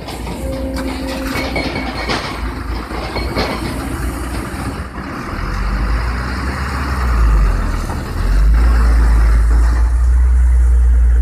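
Kobelco crawler excavator's diesel engine running while the bucket dumps sand into a tipper truck, the sand pouring and clattering into the truck bed over the first few seconds. About halfway through, a deep rumble swells and stays much louder as the machine swings its boom back out.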